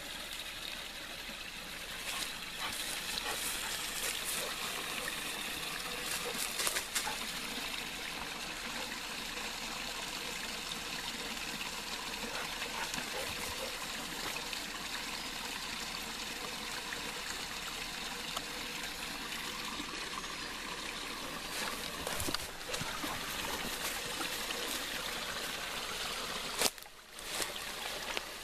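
A small rocky creek trickling over stones, a steady watery hiss, with a few brief clicks or knocks along the way.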